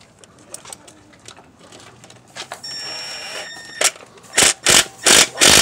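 Light clicks of metal parts being handled, a brief squeak, then a quick run of loud metallic clunks near the end as the clutch release bearing and slave cylinder assembly is seated on the transmission and checked for play.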